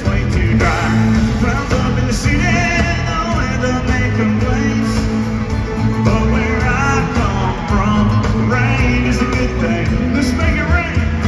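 Country-rock band playing live, electric guitars to the fore over a full band mix.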